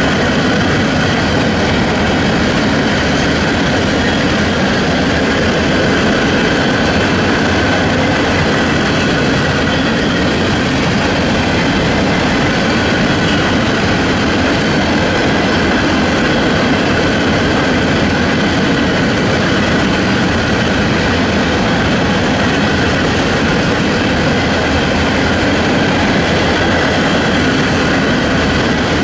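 Freight train cars rolling past steadily, their wheels running on the rails.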